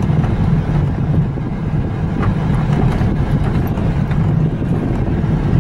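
A vehicle's engine running steadily at low speed while driving, a constant low hum under even road noise.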